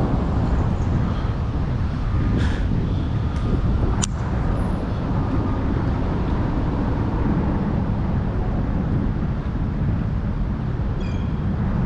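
Steady low rumble of road traffic, with a sharp click about four seconds in.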